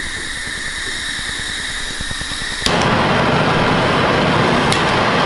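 Gas hissing from handheld propane blowtorch nozzles, then a sharp igniter click about two and a half seconds in as a torch lights and its flame burns with a loud, steady rush. A smaller click comes near the end.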